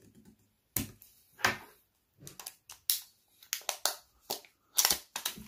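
Plastic shrink-wrap on a hair clipper's battery pack being slit with a craft knife and peeled off the cells: a string of irregular sharp crackles and scrapes.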